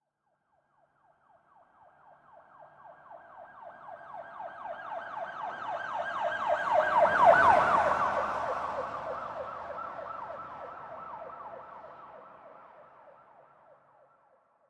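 Police car siren on a rapid yelp, passing by: it swells up from faint over about six seconds, is loudest just past the middle, then fades away, its pitch dropping slightly as it goes past. A low road rumble comes up briefly at the closest point.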